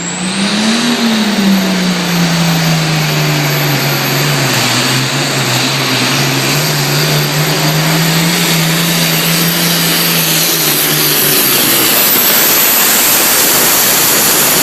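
Super Farm pulling tractor's turbocharged diesel engine at full throttle under load, its turbocharger whistle climbing sharply in the first second and then holding at a high steady pitch over the engine's running note.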